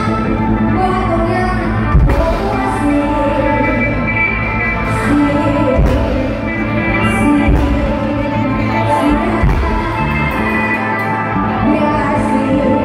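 Loud amplified live band music with a singer, Thai luk thung style, played through a PA system.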